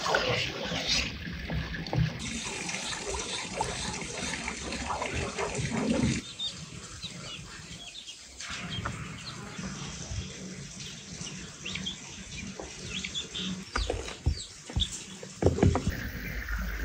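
Outdoor cooking sounds: food being handled and pressed into a pot with scattered soft clicks, with short bird chirps in the background. Near the end, oil starts sizzling in a frying pan.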